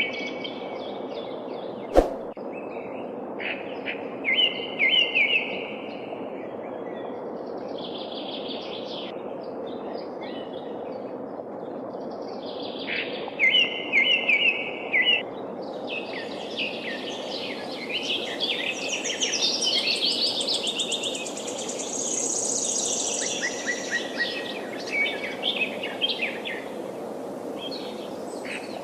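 Several forest birds singing and chirping in repeated trills over the steady rush of a flowing river, with a single sharp click about two seconds in. The birdsong grows busier in the second half.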